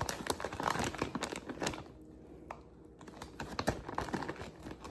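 Quick clicking and crackling handling noises as a rotisserie chicken is pulled apart by hand, in two spells with a short lull about two seconds in.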